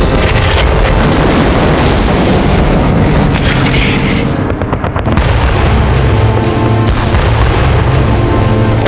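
Heavy booming explosions over a continuous low rumble, with a cluster of sharper blasts in the second half, set against music.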